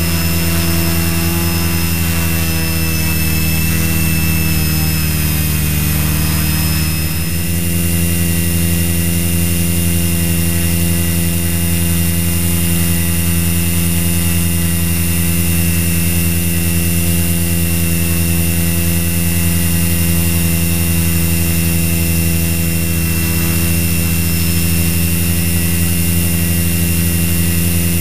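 Multirotor drone's motors and propellers whining steadily in flight, with a shift in pitch about seven seconds in.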